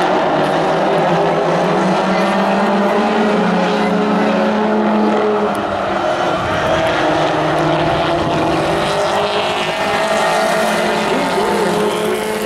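Pro4 race trucks' engines running on the track, several at once in a steady, loud drone, with pitches sliding up and down near the end as trucks pass.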